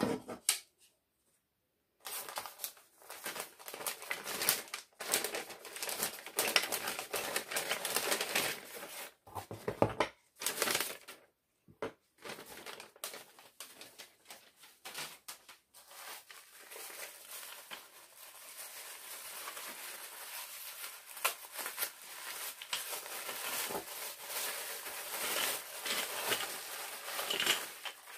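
Tissue paper and plastic packaging crinkling and rustling as they are handled and unwrapped, starting about two seconds in and running on with only brief pauses, densest toward the end.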